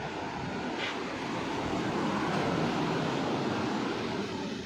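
Rough sea surf breaking and rushing on the beach below, a steady roar of water that swells about halfway through, with wind buffeting the microphone.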